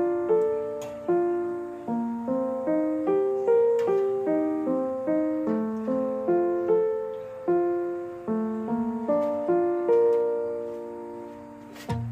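Background piano music: a slow melody of single struck notes, each ringing and fading before the next.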